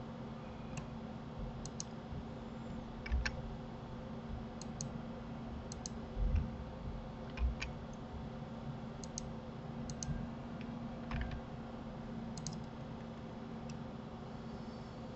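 Irregular clicks of a computer mouse and keyboard keys over a steady low hum, with a few louder dull thumps.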